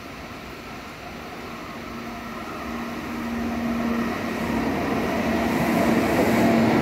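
Taipei Metro C301 train with refitted propulsion equipment pulling into the station, its running noise growing steadily louder as it nears. A steady low hum joins about halfway through.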